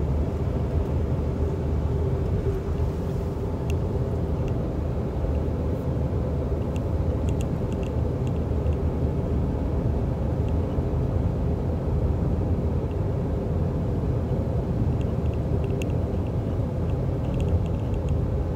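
Steady low drone of engine and tyre noise inside the cabin of a Lifan X60 SUV cruising at highway speed, with a few faint ticks over it.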